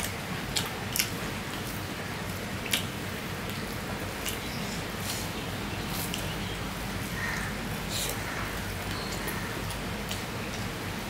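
Eating rice by hand from a steel plate: fingers mix rice and curry with soft squishing and sharp clicks against the plate or from the mouth, three louder clicks in the first three seconds, over a steady low hum.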